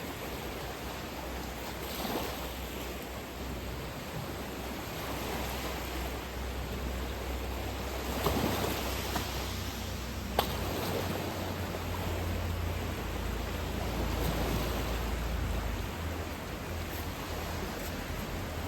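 Steady ambient noise, a low rumble under an even hiss, with a faint knock about eight seconds in and a sharp click about ten seconds in.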